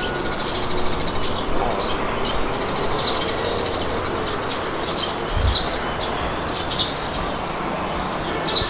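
Wind blowing steadily with a low rumble, while small birds chirp again and again throughout.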